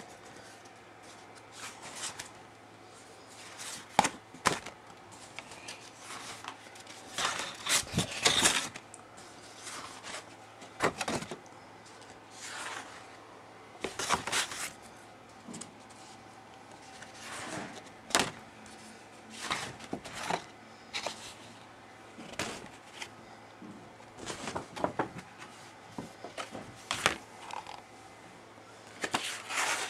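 Irregular handling noises: scattered rustles, taps and knocks, a few lasting about a second, over a faint steady low hum.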